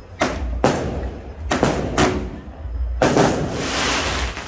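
A quick series of loud firework bangs from a ground-launched firework tube, about five sharp reports, each echoing briefly. Near the end they run into a longer stretch of dense noise.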